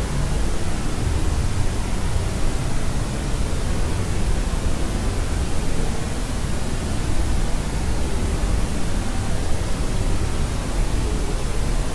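Steady white noise, heavier in the low end like pink noise, without change or breaks.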